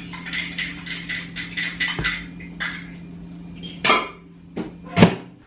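Crockery and cutlery being handled on a kitchen counter: a quick run of light clinks and scrapes, a dull thump about two seconds in, then two sharper knocks near the end. A steady low hum runs underneath.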